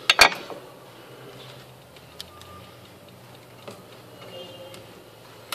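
Two sharp knocks of small hard objects handled on a cloth-covered workbench just after the start, then low room tone broken by a few faint clicks.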